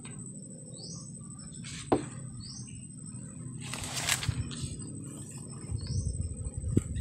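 A bird repeating a short, high, rising call about once a second, over a steady high whine. Brush rustles and footsteps come and go, with a sharp snap about two seconds in.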